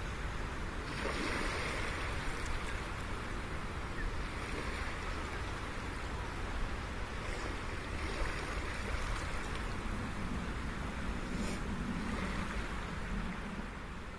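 Sea waves washing gently on the shore, a steady hiss that swells and eases every few seconds.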